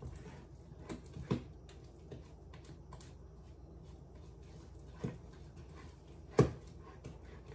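A utensil stirring instant mashed potatoes in a cooking pot, knocking against the pot four times, the loudest about six and a half seconds in.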